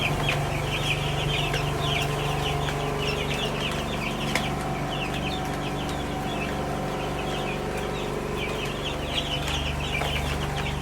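A flock of week-old broiler chicks peeping without pause, many short high chirps overlapping, over a steady low hum.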